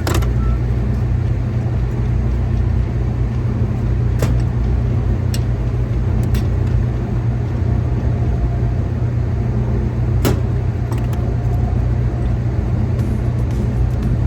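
Steady low machinery rumble that does not change, with a few sharp clicks and taps scattered over it.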